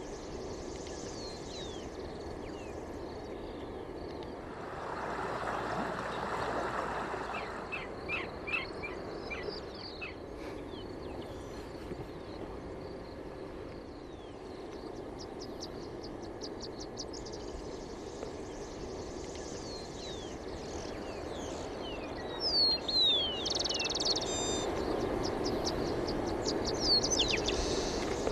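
Several birds calling: rapid trains of chirps and short falling whistles over a steady rushing background noise that swells for a couple of seconds about five seconds in.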